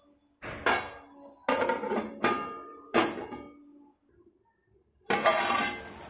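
A metal ladle clanking and scraping in an aluminium kadhai of chopped mustard greens, about four ringing knocks roughly a second apart as the saag is stirred and covered with a steel plate. About five seconds in, a steady hiss of the steaming greens cooking in the pan.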